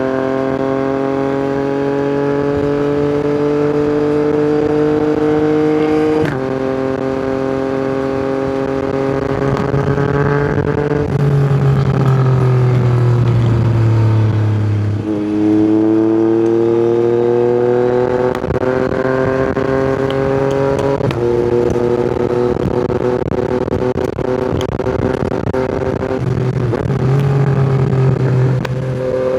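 Yamaha MT-09's inline-three engine through an aftermarket Akrapovic exhaust, pulling up through the revs under acceleration. It drops sharply in pitch at a gear change about six seconds in, then falls away while slowing near the middle. It climbs again and steps down at another shift about two-thirds through, then holds fairly steady.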